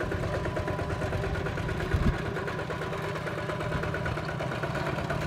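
Kubota RT120 two-wheel walking tractor's single-cylinder diesel engine running steadily with a rapid low chugging, and one louder knock about two seconds in.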